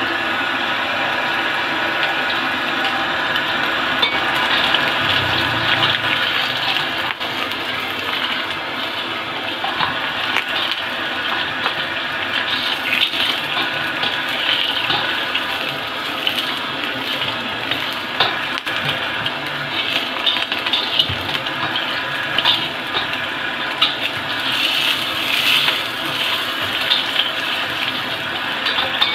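Egg frying in hot oil in a wok: a steady, dense sizzle with scattered crackles, with a metal spatula now and then scraping against the wok.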